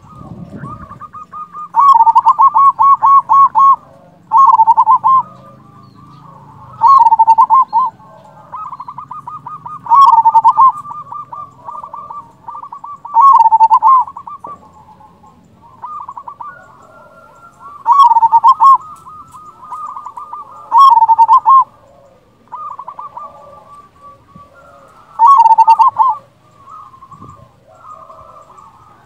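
Local zebra dove (perkutut) cooing. It gives about eight loud phrases a few seconds apart, each a quick staccato run of notes, with softer cooing in between.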